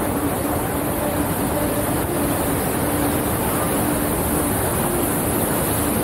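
Steady rushing of turbulent water in the dam's outlet channel, a loud, even roar with no breaks.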